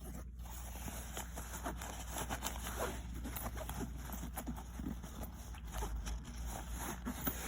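Handling noise from skeleton keys and the bag's contents: scattered small clicks and soft rustling.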